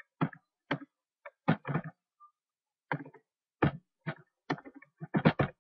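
Typing on a computer keyboard: a dozen or so separate keystrokes at an uneven, slow pace, with short gaps between them.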